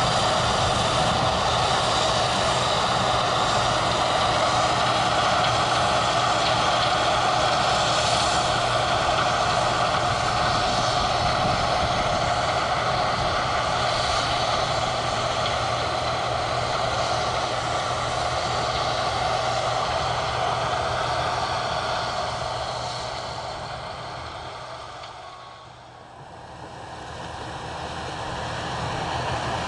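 Combine harvester running during harvest: a steady, even mechanical drone. It dips sharply about 26 seconds in and then comes back up.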